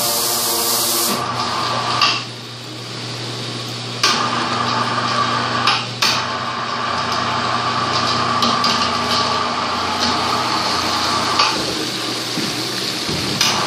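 Industrial ultrasonic parts-cleaning tank with agitation running: a steady electrical hum under the churning hiss of the cleaning water. A few sharp clanks and knocks come from the aluminium engine block and its lifting gear, about two, four and six seconds in and again near the end.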